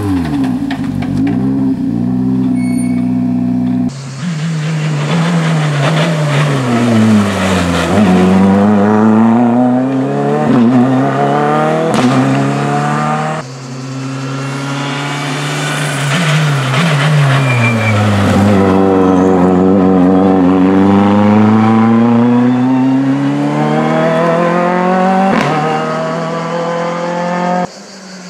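Ford Fiesta R5 rally car's turbocharged 1.6-litre four-cylinder engine at full effort through corners: the revs drop under braking and climb again as it accelerates away, in several passes that cut abruptly from one to the next.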